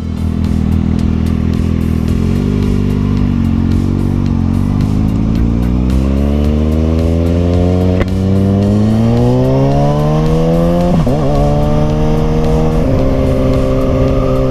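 Kawasaki ZX-6R 636 inline-four motorcycle engine heard from the rider's seat, pulling away and rising steadily in pitch for several seconds, with a brief break about eleven seconds in, then holding a steady pitch while cruising.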